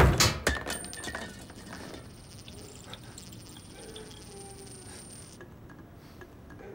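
A sudden loud crash of objects knocked over, followed by a few small clattering rattles, then a faint high steady tone that stops about five seconds in.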